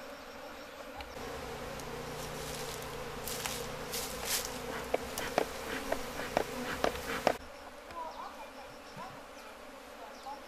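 Honeybees buzzing in a steady dense hum, a colony stirred up as it is moved from a log hive into a box hive. From about a second in, a low rumble and then a run of sharp clicks and knocks sit over the buzz, cutting off suddenly about seven seconds in.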